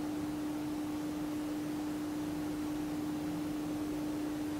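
A steady hum at one unchanging pitch over faint hiss: background room tone. The stirring of the soap batter is not heard.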